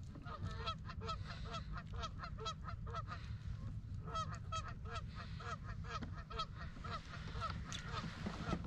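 A flock of geese honking, a rapid run of short calls about three a second that goes on without a break, over a steady low rumble.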